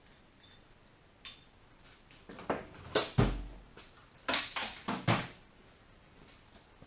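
Metal hand tools being handled, giving a few scattered clinks and knocks with a low thud about three seconds in.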